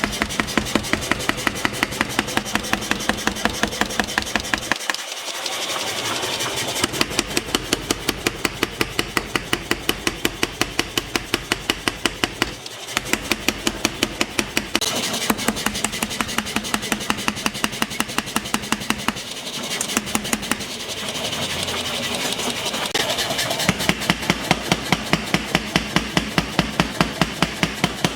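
Forging hammer striking metal in a fast, even rhythm of about five blows a second, stopping briefly three times.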